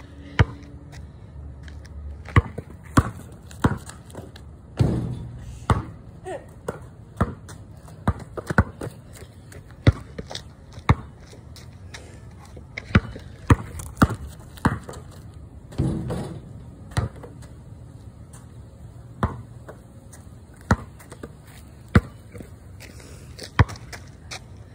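A basketball bouncing on concrete: sharp single bounces at irregular gaps of roughly half a second to a second and a half.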